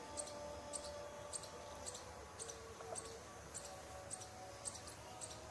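Faint outdoor ambience: a short, high chirp repeats about every half second over a few faint steady tones and a low rumble.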